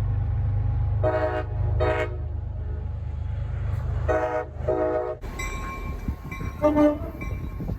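A train horn sounds four short blasts in two pairs, over the steady low rumble of a running train. Near the end, after the rumble drops, a brief louder horn note sounds once.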